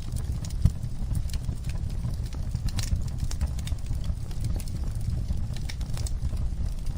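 Fire crackling in a fireplace: irregular sharp pops and snaps over a steady low rumble of burning.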